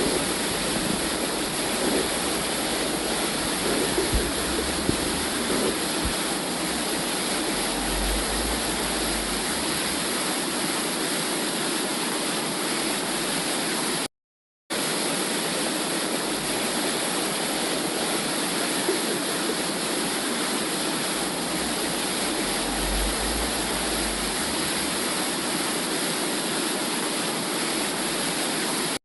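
Steady whooshing womb-sound noise of the kind played to soothe babies, broken by a brief moment of silence about halfway through.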